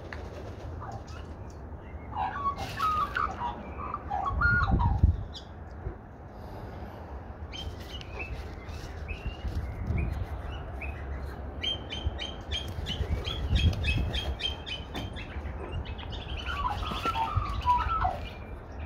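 Australian magpies calling: a warbling phrase a couple of seconds in and another near the end, with a run of rapid, high repeated chirps in between. A low rumble about five seconds in.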